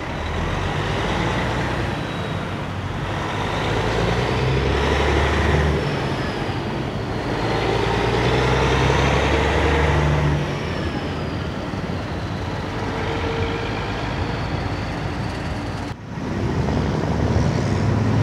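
Diesel semi truck with a long-hood tractor and refrigerated trailer driving slowly past, engine running with tyre and road noise. It grows louder as it passes, about 4 to 10 seconds in, with a faint high whine that rises and falls. There is a sudden break near the end, then another truck's engine comes up.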